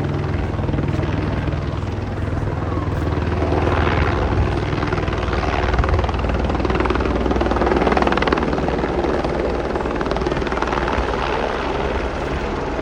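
Helicopter coming in to land, its rotor and engine running loud and steady, with the rotor noise swelling and easing every few seconds.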